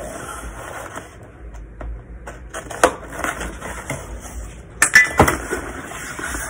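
Hands opening a small shipping box and handling its packaging: irregular rustling with scattered clicks and taps, the sharpest knocks about three and five seconds in.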